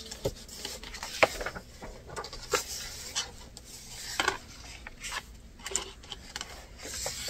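Pages of a paper booklet turned and smoothed flat by hand: paper swishing and rustling, with a scatter of light taps and clicks against the table.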